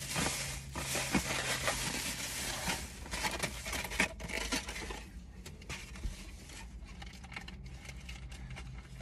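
Thin plastic carry-out bag rustling and crinkling as food is pulled out of it. After about five seconds this gives way to quieter handling of a foam clamshell takeout box, with light clicks and scrapes.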